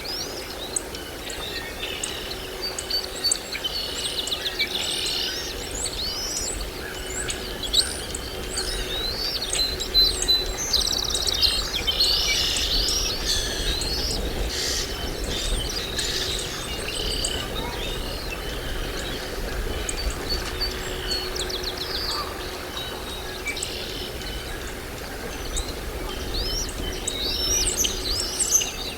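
Several birds chirping and calling in short, overlapping notes, busiest in the middle and again near the end, over a steady low background rumble.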